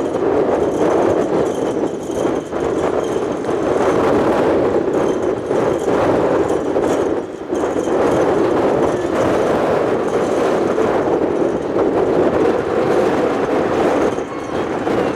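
Boeing 777 freighter's twin jet engines running loudly as it arrives, a steady rushing noise.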